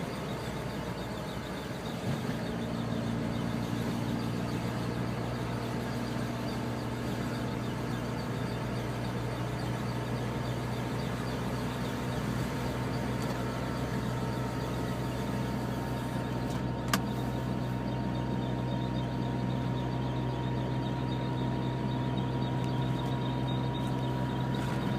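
Car running with a steady low drone and a thin, steady whine above it: an unexplained abnormal noise that the owner takes to come from the front left of the car. A single sharp click sounds once, about two thirds of the way in.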